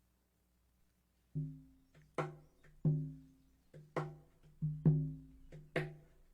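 Instrumental introduction to a song starts about a second and a half in: a steady beat of sharp percussive strikes and low notes that ring and die away.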